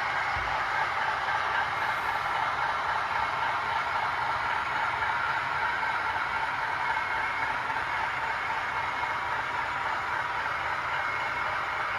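Model Class 60 diesel locomotive running slowly along model railway track, its motor and wheels giving a steady whirr.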